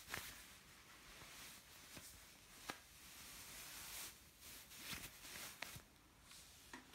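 Bare foot moving in a basin of water: faint swishing and sloshing in soft waves, with a few sharp little splashes.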